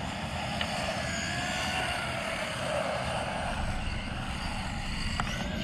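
Electric motors of two 4WD radio-controlled cars, a 1/14 Team Associated Reflex 14B buggy and a 1/10 Redcat Blackout XTE Pro brushless monster truck, whining as they race, the pitch rising and falling with the throttle.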